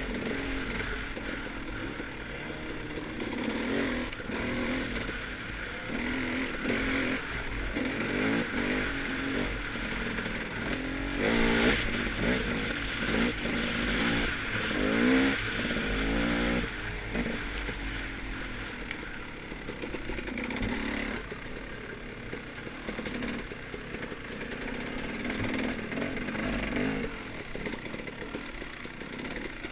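Off-road dirt bike engine being ridden on a trail, its revs climbing and dropping again and again with throttle changes, busiest in the first half.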